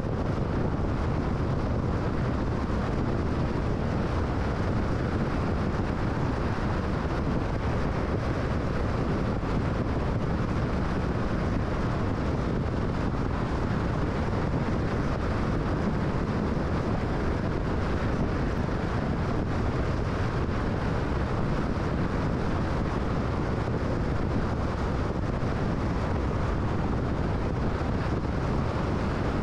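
Steady road noise of a car driving at highway speed: tyre and wind noise with a low rumble, even and unbroken.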